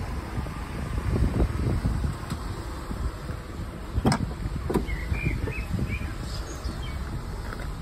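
Wind buffeting the microphone, a low uneven rumble with handling noise, broken by two sharp clicks about four seconds in and a few short bird chirps just after.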